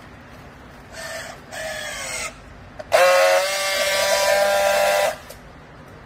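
Battery-powered handheld strapping tool on plastic strap: a motor whine in two short spells about a second in, its pitch falling as it draws the strap tight, then a louder steady buzz for about two seconds as it friction-welds the strap joint.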